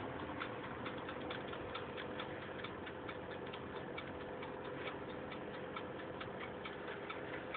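Toaster oven running: its mechanical timer ticking evenly at about four or five ticks a second over a steady low hum.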